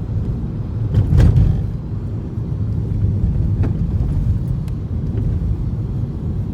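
Steady low rumble of a car driving on the road, with a louder bump about a second in and a faint tick or two later.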